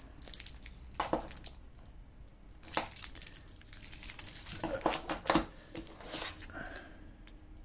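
Handling noise from an Armani Exchange Drexler AX2600 watch with its steel link bracelet and attached price tag as it is turned in the hands and laid on the table: irregular crinkling and light clicks, loudest a little after five seconds in.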